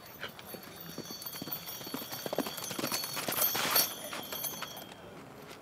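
Hoofbeats of a Chilean horse moving around the arena during the gaits test. They grow louder, peak as the horse passes close a little past two-thirds of the way through, then fade.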